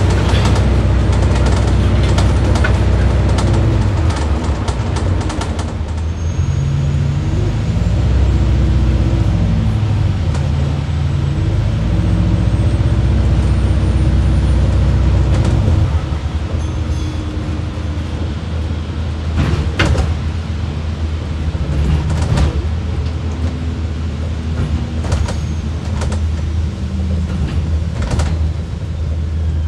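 Diesel engine of a London bus running on the move, heard from inside the passenger saloon as a low, steady drone that eases off about halfway through. Several sharp knocks and rattles sound later on.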